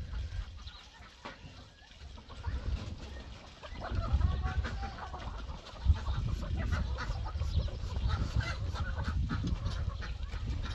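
A flock of domestic chickens clucking, the calls thickening from about four seconds in as the birds gather, over a low rumble.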